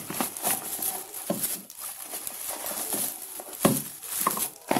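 Clear plastic packaging bags crinkling and rustling as the speakers wrapped in them are pulled out of a cardboard box, with irregular light knocks against the cardboard.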